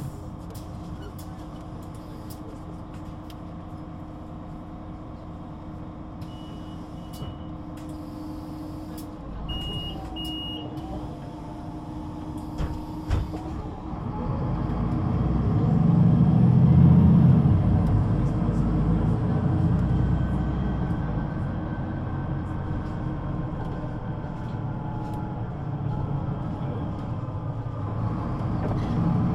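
Solaris Urbino 18 III articulated bus's DAF diesel engine running steadily at a standstill, with two short beeping signals and a sharp click. About halfway through, the engine grows loud as the bus pulls away. It then settles to steady running through the Voith automatic gearbox, with a faint rising whine, and grows louder again near the end.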